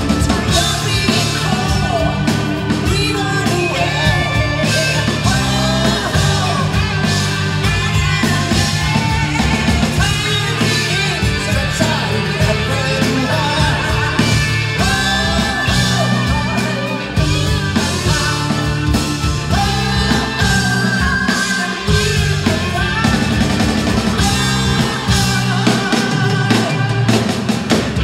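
Live rock band playing: electric guitars, bass guitar and drum kit, with a woman singing lead.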